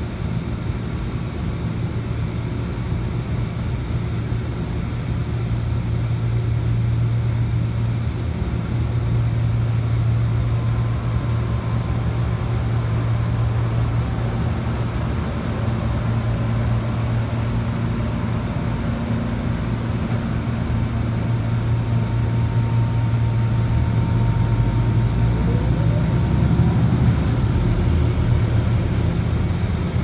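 John Deere combine harvester running as it works the wheat, a steady low engine drone that swells a little twice, heard from inside a car.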